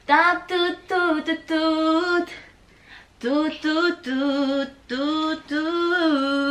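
A woman singing alone, without accompaniment, in short held notes: two sung phrases with a brief pause about two and a half seconds in.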